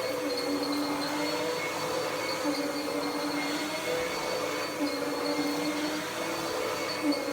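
Dirt Devil PowerMax Pet vacuum cleaner running: a steady motor whine over a rush of airflow, its pitch wavering slightly now and then as it works across the floor.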